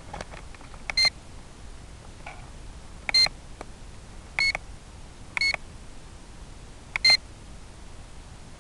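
Short electronic warning beeps: five high beeps at uneven intervals, some doubled, over a steady hiss.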